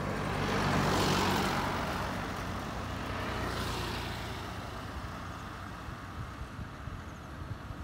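Road vehicles passing close by on asphalt: one swishes past about a second in, and a pickup truck follows a few seconds later over a low engine hum. The noise then fades to quieter traffic.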